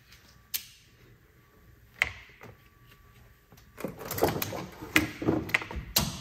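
Two sharp clicks as a car battery's wire carry handles are pulled up, then a clatter of scraping and knocks about four seconds in as the Group 48 battery is worked up out of its tight-fitting plastic compartment.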